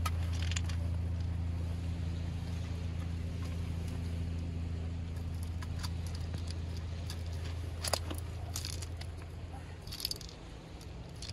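A steady low engine hum that fades away near the end, with a few sharp clicks and crackles about eight and ten seconds in.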